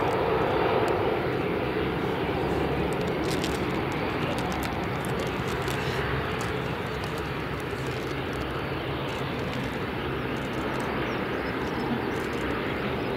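Bombardier Dash 8 Q400's two Pratt & Whitney PW150A turboprop engines and six-bladed propellers running as the airliner rolls out and slows on the runway after landing. A steady propeller drone that eases slightly after about a second.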